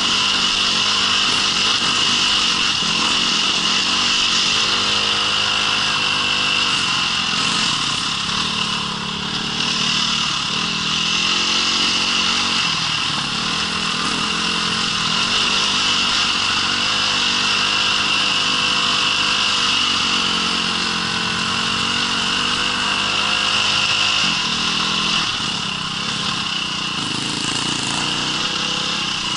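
Small off-road engine running under load, its pitch rising and falling as the throttle opens and closes, with a steady high hiss over it.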